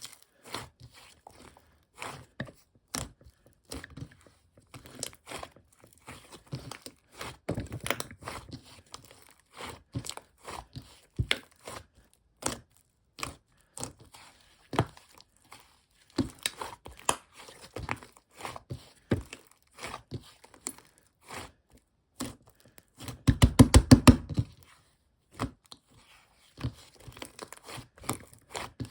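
Close-up handling sounds: irregular taps and clicks with light crinkling. A quick rattle of loud clicks comes about twenty-three seconds in.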